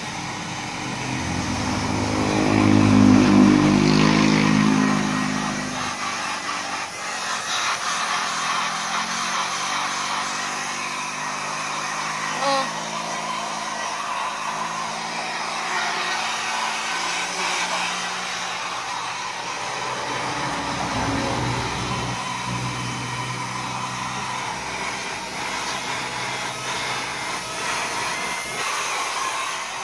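Small handheld hair dryer running steadily as it blows into a husky's thick coat: an airy hiss over a motor hum. In the first few seconds a louder low rumble swells and fades.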